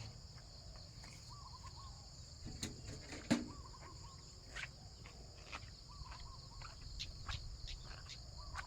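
Crickets or similar insects chirring steadily, with a short wavering call repeating about every two seconds and a few faint clicks.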